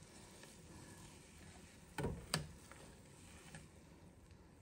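Two light clicks of a metal mesh skimmer knocking against the pot while foam is skimmed off boiling broth, about half a second apart, over a faint steady background.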